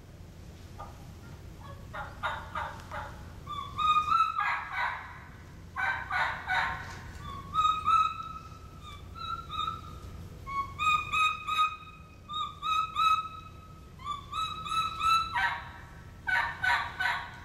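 Hunter's turkey mouth call imitating a wild turkey's kee-kee run: series of short, clear whistled notes and raspier yelping notes, repeated in groups with brief pauses between.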